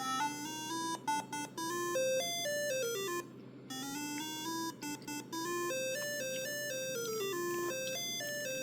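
Alarm tune from a homemade digital-logic alarm clock: electronic tones stepping through a melody, several notes a second, with a brief break about three seconds in. The alarm is going off because the clock has reached its set alarm time.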